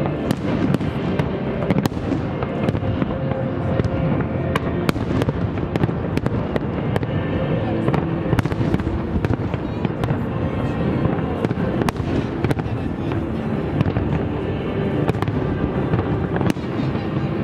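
A fireworks display: many aerial shells bursting in quick, irregular succession, a few bangs and crackles each second over a continuous rumble.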